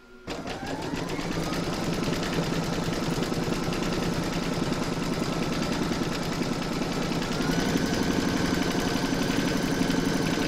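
Home embroidery machine starting up and stitching, its motor whine rising in pitch over the first second or so, then running steadily with a fast needle rhythm. It is stitching quilting lines through fabric and batting, and its pitch steps up slightly about seven seconds in.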